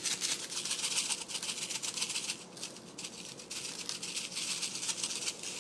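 A shaker of coarse dry rub being shaken fast, the granules rattling as seasoning is sprinkled over a raw steak; the shaking eases a little in the second half.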